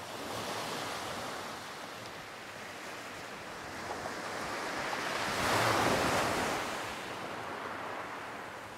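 Small sea waves breaking and washing up the beach in a steady rush of surf. One wave swells loudest a little past halfway and then falls back.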